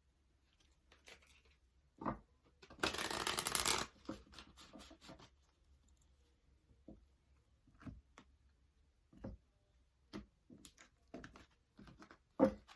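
Oracle cards being shuffled by hand: a dense papery burst of about a second near three seconds in, with scattered soft taps and flicks of cards being handled and drawn for the rest of the time.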